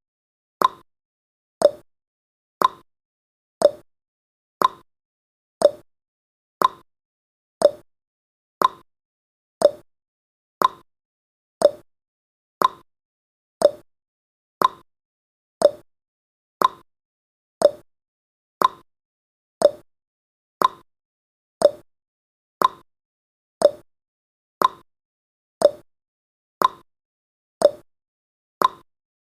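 Clock ticking sound effect of a countdown timer: an even tick-tock, about two clicks a second, alternating a higher tick with a lower tock.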